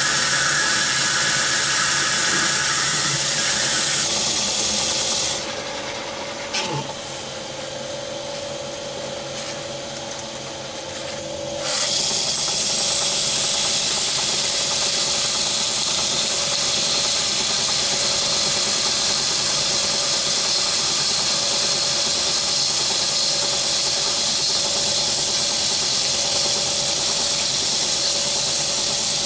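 A metal lathe running with a steel bearing housing spinning in the chuck. First a cutting tool works the bore. From about twelve seconds in there is a steady rubbing hiss as the spinning bore is polished by hand to size.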